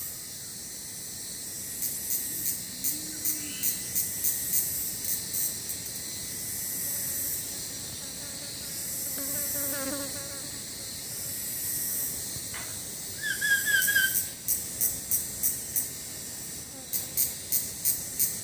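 Forest insects calling in trains of shrill, evenly spaced pulses, about two to three a second, in two spells. A few faint bird notes sound in the lull between them.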